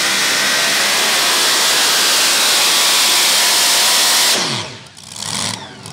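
Supercharged engine of a super modified two-wheel-drive pulling truck running flat out at full throttle under load, a loud steady scream. About four seconds in, the throttle comes off and the revs fall away quickly as the pull ends.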